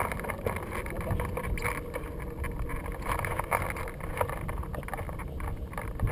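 Wind of about 10–15 mph buffeting the microphone of a camera mounted on a hang glider: a steady low rumble with frequent small clicks and taps.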